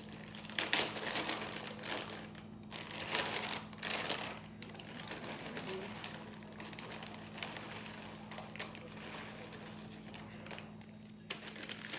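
Plastic bags of shredded cheese crinkling and rustling as they are handled, in uneven bursts with small clicks, busiest in the first few seconds, over a steady low hum.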